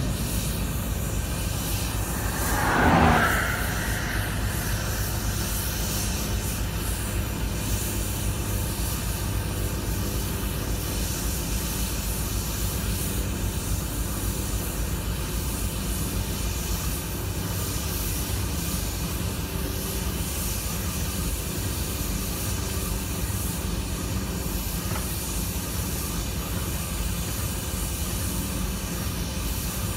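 Steady road and wind noise inside a car driving at speed alongside a running diesel freight locomotive, the locomotive's engine drone blended in. A brief louder rush of sound comes about three seconds in.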